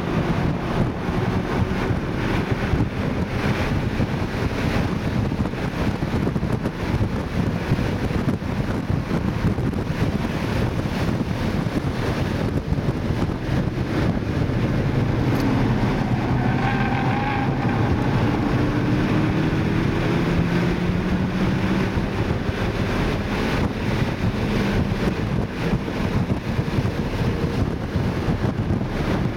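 2012 Mini Cooper S's turbocharged 1.6-litre four-cylinder engine heard from inside the cabin at track pace. The engine note rises and falls as the car accelerates and slows through corners, over steady road and wind noise.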